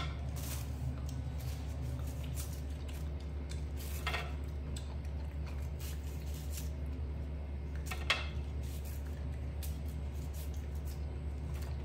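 A macaque eating fruit slices off a ceramic plate: a few brief soft clicks and bites several seconds apart, over a steady low hum.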